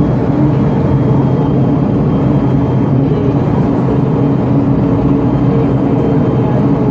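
Diesel engine of a Mercedes-Benz O-500UA articulated city bus (Caio Mondego HA body) running at a steady pitch, with no clear rise or fall in revs.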